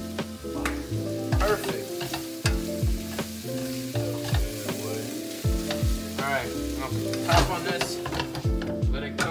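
Thin-sliced steak sizzling in a frying pan, stirred and turned with metal tongs. Background music with a steady deep bass beat plays over it.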